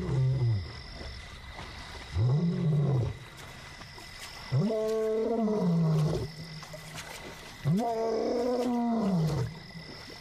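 Young male lion roaring: four calls, each rising then falling in pitch, the later ones longer and stronger, a roaring bout used to call for his missing brother.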